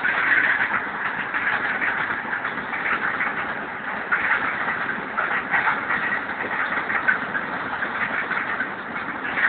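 Freight train of open wagons rolling past on the track: a steady run of wheel noise with irregular clatter.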